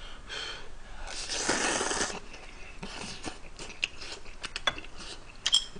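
Ramen noodles slurped for about a second, then chewing with small wet clicks and smacks.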